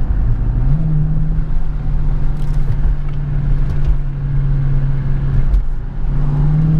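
2014 Dodge Challenger R/T's 5.7-litre Hemi V8 running at a steady low drone while cruising, heard inside the cabin. Its pitch steps up slightly about a second in and again near the end.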